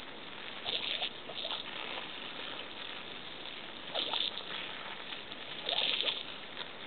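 Water spraying from a garden hose with a steady hiss, broken about four times by short, louder splashing bursts as a Clumber spaniel plays and snaps at the spray.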